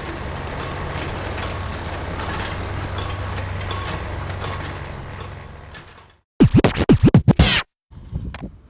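Intro music: a steady crackling drone with a low hum fades in and out, then a quick run of record-scratch sweeps about six and a half seconds in cuts off abruptly.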